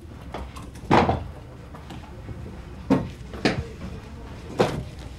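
A few short knocks and thumps of furniture as a man is seated in an office chair at a desk, the loudest about a second in and three lighter ones later.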